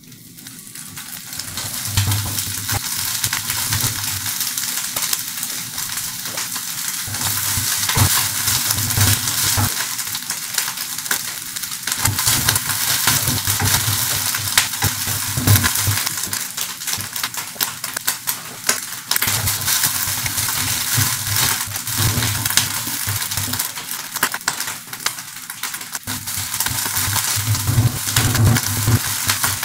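Shredded pork carnitas frying in their own lard in a nonstick pan: a steady, dense sizzle that builds over the first couple of seconds, with the scraping, tapping and clacking of a plastic turner stirring and breaking up the meat as it browns.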